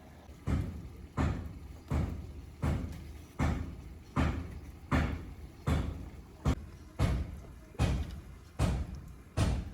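A steady run of heavy thuds, about four every three seconds, each a single blow that dies away quickly, like something being struck or pounded over and over.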